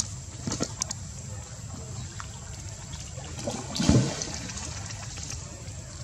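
Water sloshing and lapping as a monkey swims with a baby on its back, with small splashes and a louder thump about four seconds in.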